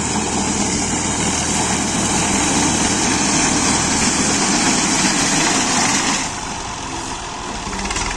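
Massey Ferguson 240 tractor's three-cylinder diesel engine running steadily while it drives a front-mounted reaper through standing wheat in fourth gear, not straining under the load. The sound drops a little about six seconds in.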